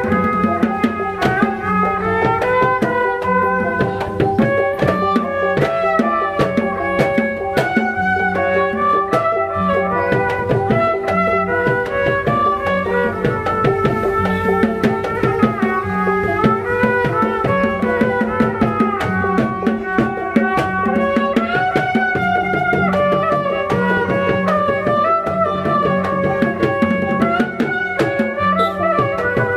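Betawi ondel-ondel music: kendang drums played in a dense, fast pattern under a bending, reedy melody line and a steady held drone tone.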